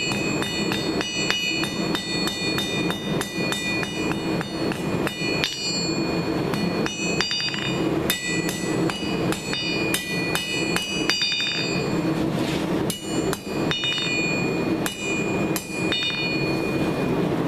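Hand hammer striking square steel stock on an anvil in a steady run of ringing blows, about three a second, drawing the bar out to a tapered point. A brief pause comes about twelve seconds in.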